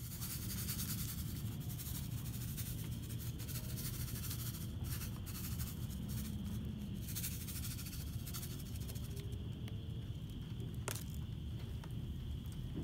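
Steady low rumble of wind on the phone's microphone, with light scratchy rustling of a hand in loose potting mix and a single sharp click about eleven seconds in.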